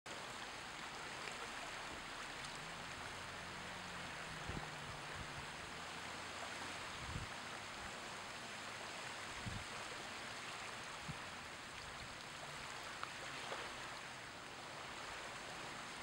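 Small waves washing on a beach shore: a steady wash of water, with a faint low hum that comes and goes in the first half.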